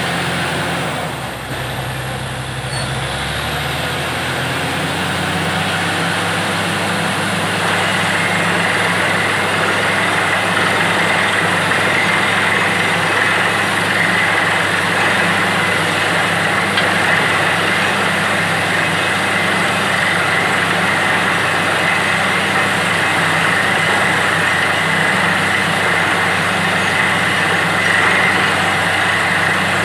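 Truck-mounted borewell drilling rig running steadily while drilling. Its engine drones under a dense hiss of air blowing water and mud out of the borehole, and a brighter high hiss joins about eight seconds in.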